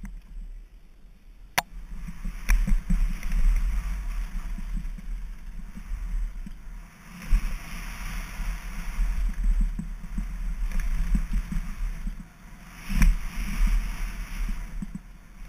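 Mountain bike running fast down a dirt trail: wind buffeting the action camera's microphone and the tyres rolling on dirt, swelling and easing with speed. A few sharp clicks and knocks from the bike rattling over bumps, the loudest about a second and a half in and again near the end.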